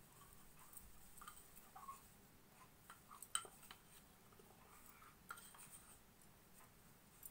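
Faint sounds of hands rolling soft paneer dough into balls over an aluminium plate: soft rustling with a few light clicks and taps, the sharpest about three and a half seconds in.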